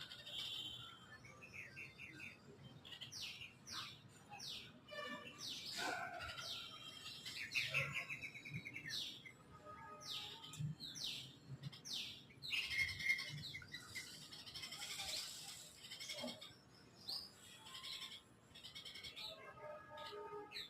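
A small bird chirping repeatedly: short, high chirps and a few quick falling notes, coming in irregular bursts.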